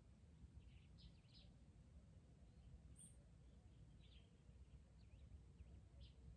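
Near silence with a low steady background rumble and a few faint, short bird chirps scattered through it.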